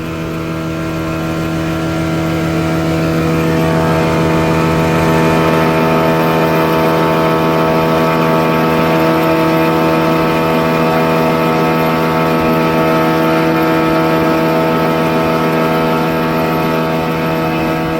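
Motorboat engine running steadily under way, building over the first few seconds and then holding an even pitch.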